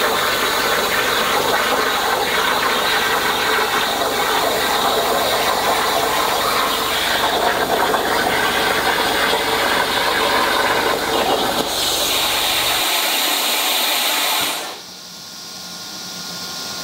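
Hypertherm plasma torch cutting steel plate on a CNC table: a loud, steady hiss and crackle of the arc. The sound shifts to a higher hiss about twelve seconds in and cuts off sharply near the end, leaving a much fainter hiss.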